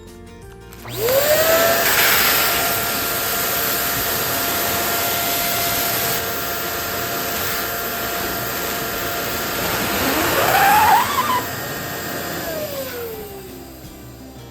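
Small electric balloon inflator: its motor spins up about a second in, runs steadily with a hum, and winds down near the end. A brief rising squeal around ten to eleven seconds in.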